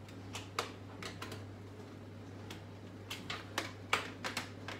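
Irregular light clicks and taps, about a dozen, bunched toward the end, over a steady low hum.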